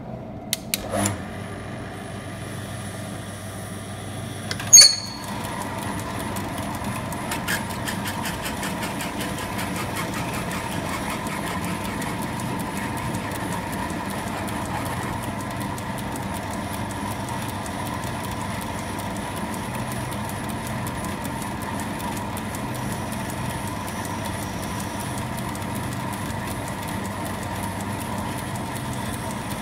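Metal lathe running steadily while parting off brass bar stock. There are a few clicks near the start and a sharp knock about five seconds in. After that the running gets a little louder, with a steady high whine and fine rapid ticking.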